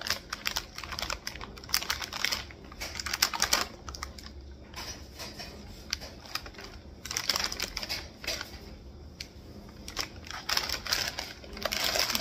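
Plastic snack packaging crinkling and crackling in the hands as it is turned over and handled, a dense run of irregular crackles.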